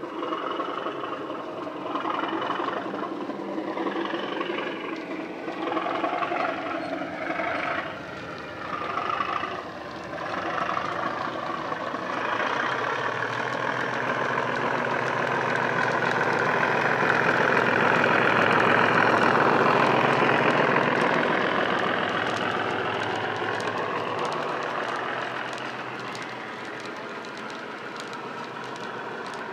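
Model Class 37 diesel's recorded English Electric engine sound from a LokSound DCC sound decoder (Legomanbiffo Wensleydale sound file) through an EM2 speaker, running under power as the locomotive passes. The engine note shifts in pitch early on, swells to its loudest about two-thirds of the way through as the loco comes by, then drops away to a lower steady sound as the wagons follow.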